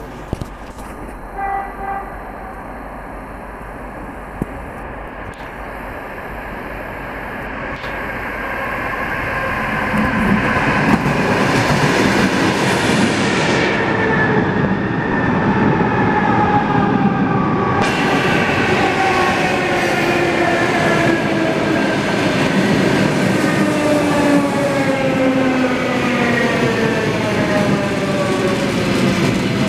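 EP2D electric commuter train running into the platform: wheels rumbling on the rails, growing louder from about eight seconds in. Several high whines fall steadily in pitch as it slows.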